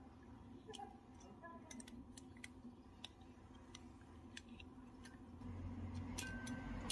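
Faint, scattered small clicks and light taps of hands working on a refrigerator compressor's wiring connections, with a low rumble from handling near the end.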